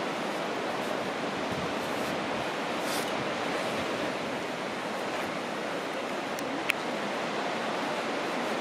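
Steady wash of sea surf on the shore, with one short sharp click about seven seconds in.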